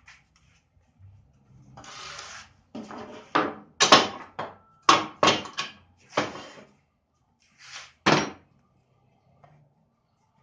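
Wooden pieces being handled on a workbench: a short scrape, then a series of sharp knocks and clatters in quick succession, with a couple more near the end.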